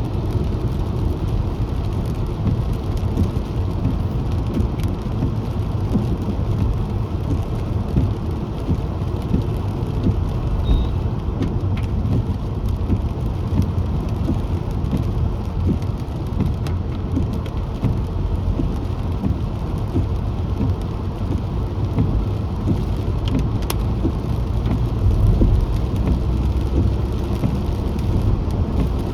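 Steady rumble of a car driving on a rain-soaked road, with scattered small clicks of raindrops.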